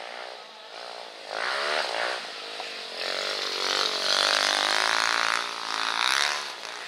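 Racing vehicle engine revving hard in repeated surges, its pitch climbing and dropping three times.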